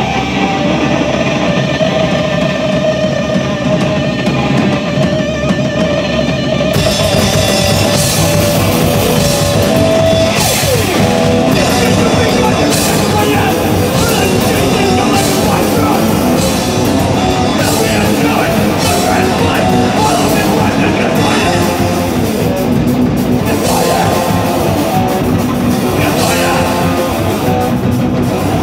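Loud live punk band: an electric guitar rings out on its own, then about seven seconds in the full band crashes in with drums and cymbals and plays on.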